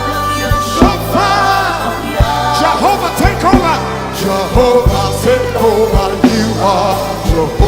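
Worship music: a band with drums and bass under a sung vocal line whose pitch glides and bends.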